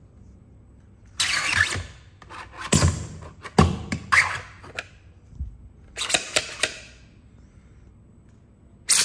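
A 3D-printed print-in-place collapsing drill sword, its nested twisted plastic blade segments sliding and clicking into the hilt as it is pushed closed. The sound comes in several short bursts of plastic scraping and clicking, with a sharp click near the end.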